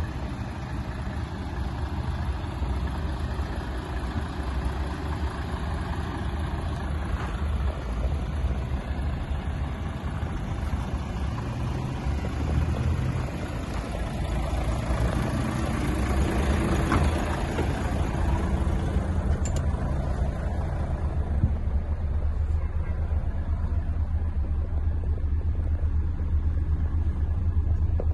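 Volvo FH 460 truck's 13-litre inline-six diesel engine idling steadily, a constant low rumble.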